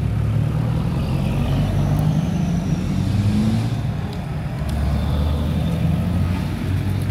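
Engines of 4x4 pickup trucks, a Toyota Hilux and then a Mitsubishi L200, running at low revs as they roll slowly past one after another, with a brief rise in engine pitch about three seconds in.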